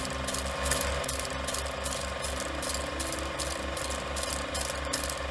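Rapid, even mechanical clicking like a ratchet or gear train turning, about five clicks a second, over soft background music.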